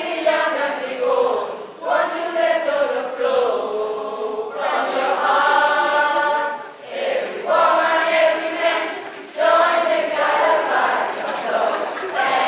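A group of young teenagers singing together in chorus, in sung phrases with held notes broken by short pauses every couple of seconds.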